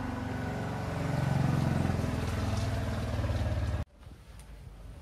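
A motor vehicle's engine running, a low hum that swells about a second in and cuts off abruptly near the end.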